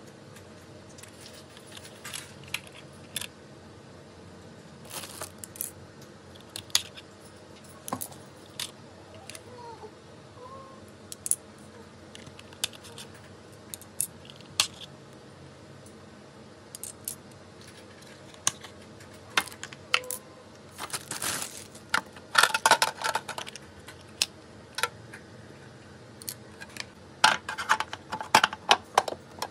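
Hard plastic parts of a vegetable slicer set being handled and set down: scattered clicks, taps and clatters as the blade inserts and slicer frame are moved. Two busier runs of clattering come about two-thirds of the way through and near the end.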